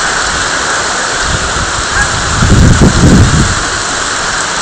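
Heavy tropical rain pouring down, a steady loud hiss. About two and a half seconds in, a low rumble swells for about a second.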